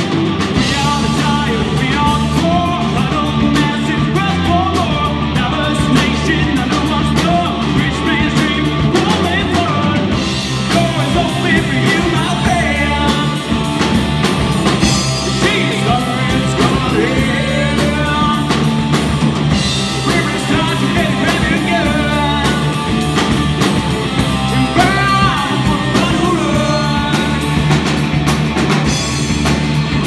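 Live rock band playing loudly: distorted electric guitars and a drum kit, with a man singing lead into a microphone.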